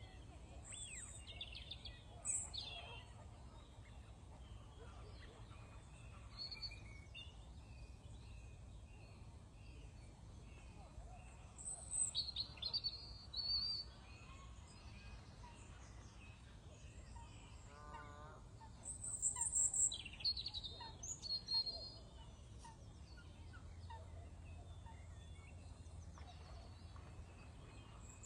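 Several birds calling and chirping, in scattered bursts that are loudest about 12 and 20 seconds in, over a steady low background rumble.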